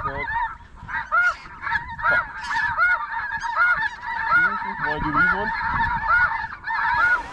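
Geese honking: loud honks repeating about every half second over a steady background chorus of calls.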